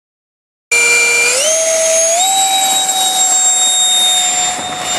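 Electric ducted fan of an RC F-35C model jet at high power on its takeoff run: a loud whine over a rushing of air, starting abruptly under a second in, stepping up in pitch twice within the next second and a half, then holding steady.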